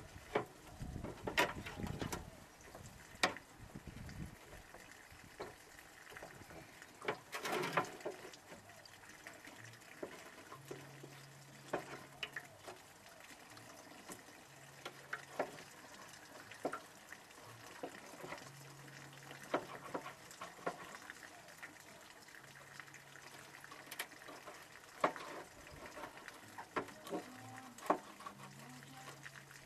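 Knife and hands working a raw carp fillet on a plastic cutting board as the skin is cut away: scattered small wet clicks, scrapes and knocks, with a louder scraping noise about seven seconds in.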